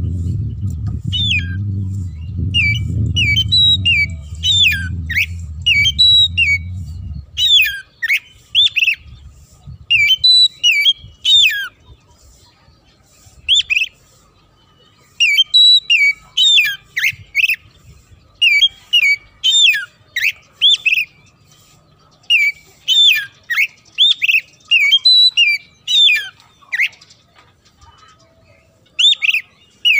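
Oriental magpie-robin singing in bouts of quick, sharp, repeated notes, many sweeping downward, with pauses of a few seconds between bouts. A low rumble under the song stops about seven seconds in.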